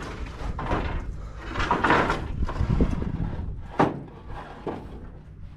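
Wooden form boards being handled: irregular scraping and knocking, with one sharp knock a little under four seconds in.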